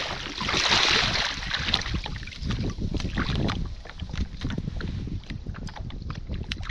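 Wind buffeting the microphone over small lapping and splashing of shallow water, with a louder rush of noise about half a second in.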